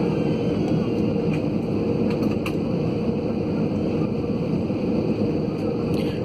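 Steady engine and air noise heard inside an airliner cabin on the ground before takeoff, a low even rumble with a steady hum.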